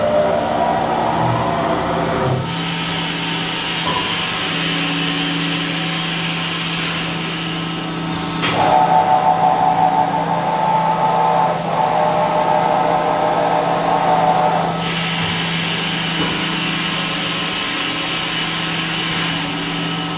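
Haas VF-6SS vertical machining center's 15,000 RPM spindle running, with a steady hum throughout. A high whine cuts in about two and a half seconds in and gives way to a lower tone around eight and a half seconds. The high whine comes back about fifteen seconds in.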